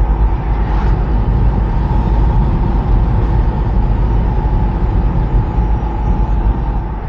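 Mercedes Vario 4x4 expedition truck driving at speed on an open road: a steady, loud rumble of engine, tyres and wind.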